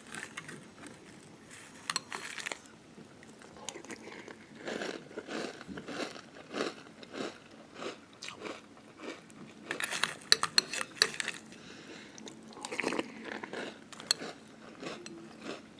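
Someone chewing mouthfuls of Cinnamon Toast Crunch cereal in milk, crisp crunching in several bouts with short pauses between, the loudest bout about ten seconds in.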